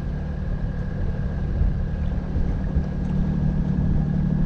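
Bavaria 41 sailboat's inboard diesel engine running steadily under power, a low even drone with a faint steady whine above it.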